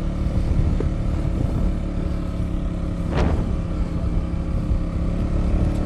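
Motorcycle engine running steadily under load on a steep uphill climb, with road and wind noise. A brief sharp high sound cuts in about halfway through.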